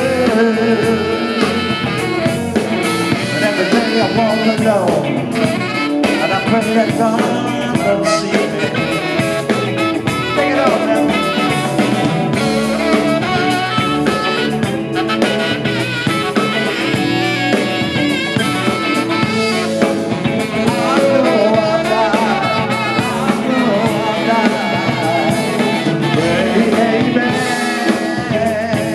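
Live band playing an instrumental passage of a song: a tenor saxophone carrying the melody over electric guitar, electric bass and a drum kit.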